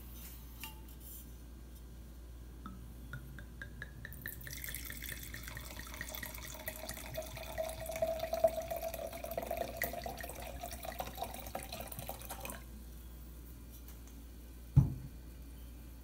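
Red wine poured from a bottle into a stemmed wine glass: a steady splashing pour for about eight seconds that stops suddenly. Near the end comes a single loud thump as the bottle is set down on the table.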